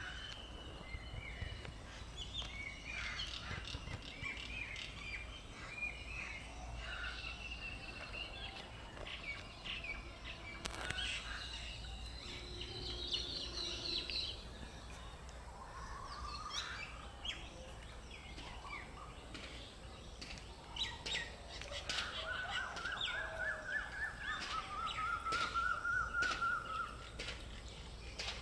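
Birds calling and singing in the open: short chirps and twitters throughout, then a rapid, repeated warbling trill over the last several seconds, over a low steady rumble.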